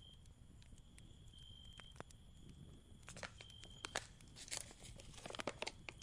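Crinkling and crunching handling noises with clusters of sharp clicks in the second half, as of crinkly packaging being handled. Behind them a cricket trills at one high pitch, on and off.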